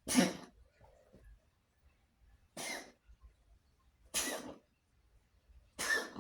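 A cat coughing in four short, harsh bursts about one and a half seconds apart, the first the loudest. It is a recurring cough that the owner suspects may be feline asthma.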